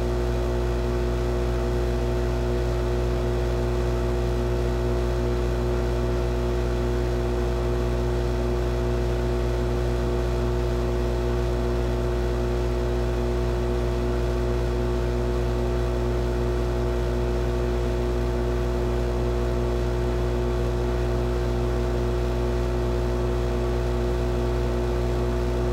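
Kendal 852D+ hot air rework station blowing steadily: a constant whir with several steady tones and a low hum, as hot air is played over a surface-mount chip to melt its lead-free solder.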